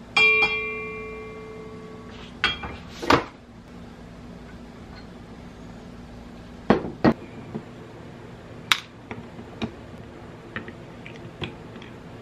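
A sharp metallic clank that rings for about two seconds, followed by scattered clicks, knocks and clinks of metal tools and small parts being handled on a workbench.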